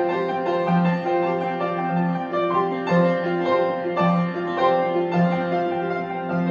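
Instrumental piano music in a steady rhythm: a low note sounds about once a second beneath repeated higher notes.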